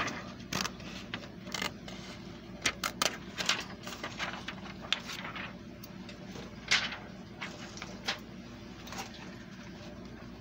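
Small scissors snipping and crisp plastic transfer film (Press-n-Peel paper) crinkling as it is cut out and handled: irregular sharp clicks and short rustles. A steady low hum runs underneath.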